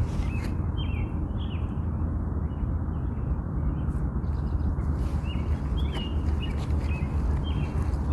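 Small birds chirping in short, quick runs near the start and again in the second half, over a steady low rumble.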